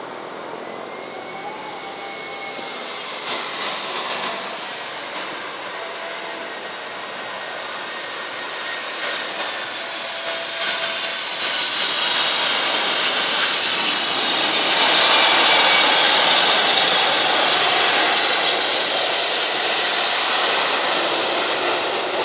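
Boeing 747-400's four jet engines on landing: a roar that grows steadily as the airliner comes in and touches down, with a high whine gliding down in pitch along the way. The roar is loudest a few seconds after touchdown as the jet rolls past, then eases off near the end.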